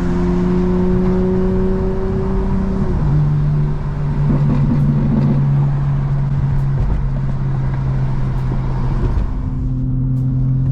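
BMW M4's S58 twin-turbo straight-six running through a full Valvetronic stainless exhaust while cruising, heard from inside the cabin over road noise. The engine note holds steady and drops in pitch once about three seconds in, as the revs fall with an upshift.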